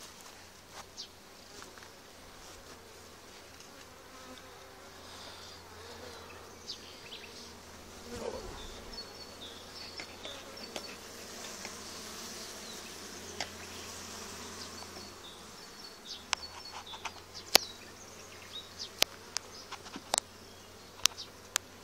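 Honeybees buzzing around an open hive. In the last few seconds there are sharp clicks and knocks as the hive tool and wooden frames are worked.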